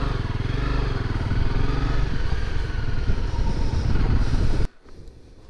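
Motorcycle engine running while riding, its pitch rising slightly in the first second and then holding steady. It cuts off abruptly a little over four and a half seconds in.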